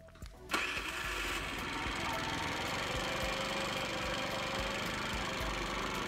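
A 4-stroke scooter engine being cranked over by its electric starter. It kicks in suddenly about half a second in and keeps turning at an even, steady pace. This is a spark test after the ignition pickup was reset to about a 2 mm gap from the flywheel.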